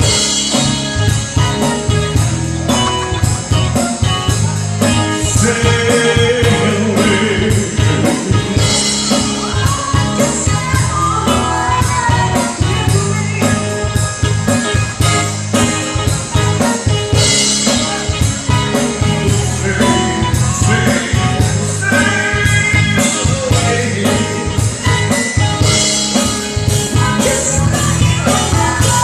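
Live cover band playing a rock song: drum kit keeping a steady beat under bass and guitar, with singing at times.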